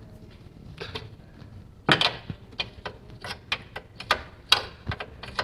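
Hand tools working on a stuck fastener: scattered metallic clicks and light clanks at irregular spacing, with a louder clank about two seconds in.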